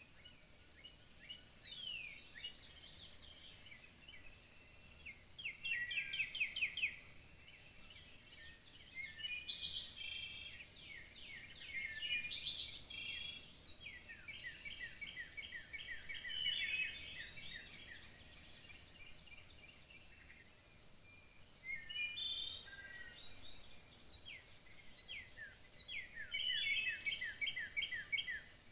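Woodland songbirds singing one after another: fast repeated chirps and trills, with a high sweeping call about a second and a half in, and short pauses between phrases.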